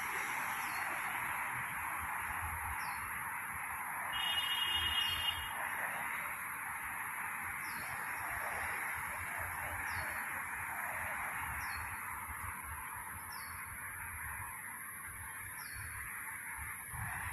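Outdoor animal ambience: a steady high-pitched drone with a short high chirp repeating every second or two, and a brief honking animal call about four seconds in.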